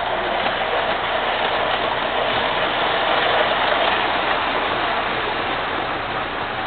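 MTH O-gauge model R32 subway train running on its track, a steady hiss-like running noise that swells slightly and eases off.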